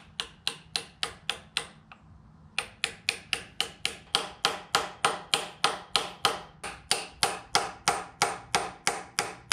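Hammer striking a socket held on the outer race of a new pilot bearing, driving the bearing into the Toyota 2JZ crankshaft. Quick, even taps, about four a second, with a short pause about two seconds in.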